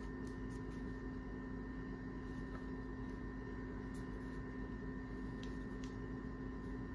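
Steady low hum with a few faint light clicks of a plastic hair trimmer being handled and turned over in the hands.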